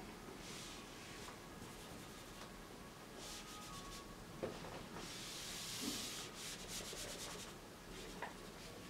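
A handheld eraser wiping a whiteboard: faint rubbing swishes in repeated strokes, with a quicker run of back-and-forth strokes a few seconds in.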